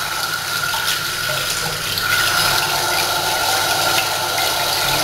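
Kitchen tap running steadily into a sink while hands are washed under it, shut off right at the end.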